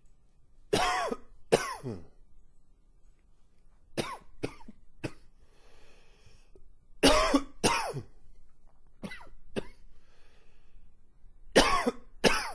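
A man coughing in repeated bouts: about eleven hard coughs in quick pairs and threes, each with a falling voiced edge, and breaths drawn in between the bouts.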